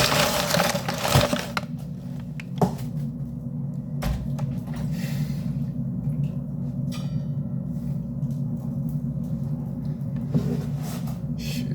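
Kitchen food preparation: scattered knocks, clicks and clatter of utensils and containers over a steady low hum.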